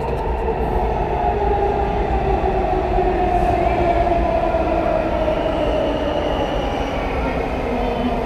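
Washington Metro Red Line subway train running through the station: electric traction motors whining in several tones that slowly shift in pitch, over a steady low rumble of the wheels. It grows a little louder toward the middle, then eases.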